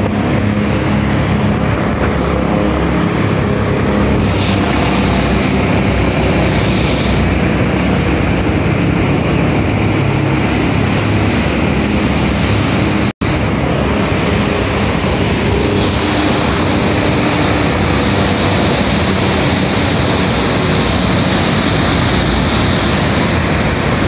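Mandakini river rapids rushing through a narrow rock gorge: loud, steady noise of churning whitewater, broken by a brief dropout about thirteen seconds in.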